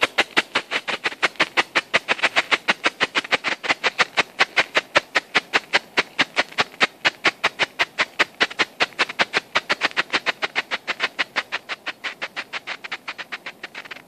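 Strobe effect of a Bengalo Fatalo No. 2 flare, popping rhythmically at about six sharp pops a second. The pops grow a little weaker toward the end.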